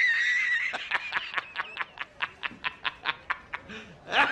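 High-pitched, squeaky giggling laughter. It opens with a squeal, then breaks into a fast run of short laughs that slow and fade. A second fit of giggling starts near the end.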